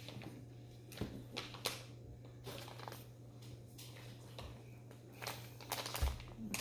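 Quiet room with a steady low hum and a few faint, scattered light clicks and taps, like small objects being handled.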